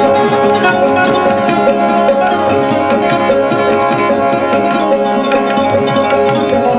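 Instrumental Indian classical-style music: a plucked string instrument playing over a steady drone, with hand drums.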